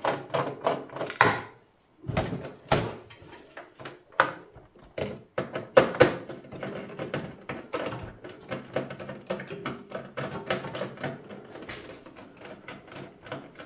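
Screwdriver turning screws out of a motherboard inside a steel desktop PC case: a busy run of small metallic clicks, taps and rattles, stopping briefly just before two seconds in.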